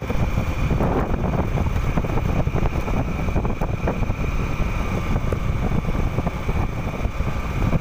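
Motorcycle riding along a road: wind rushing over the microphone and the engine running steadily underneath, with a thin steady high whine.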